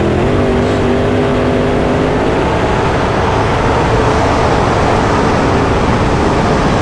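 A field of dirt-track race cars accelerating hard as the race takes the green flag. Several engine pitches climb in the first second, then merge into a loud, steady blend of engines at full throttle.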